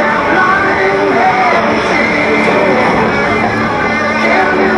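Music with a steady level played over the airshow's public-address horn loudspeakers.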